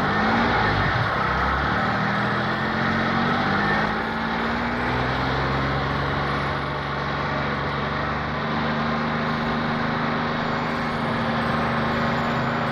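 Car engine running steadily, its pitch rising slowly over the first few seconds and then holding level.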